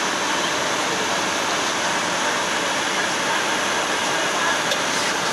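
Steady rush of airflow and engine noise inside the cockpit of a Bombardier Global 6000 business jet on approach, an even hiss-like noise with no change in level.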